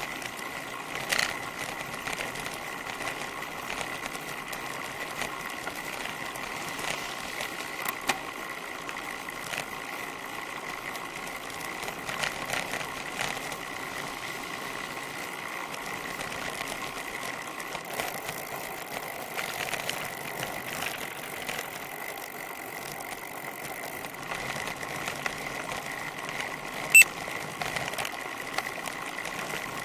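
A bicycle coasting down a sealed road, heard through its rear-mounted camera: a steady mechanical whirr and road noise, with a few short knocks from the bike. The loudest knock comes near the end.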